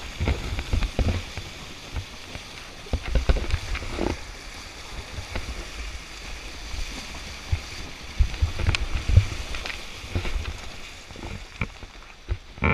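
Water splashing and rushing around the wheels of a 4x4 driving through a shallow, rocky river, with irregular low thumps and knocks throughout.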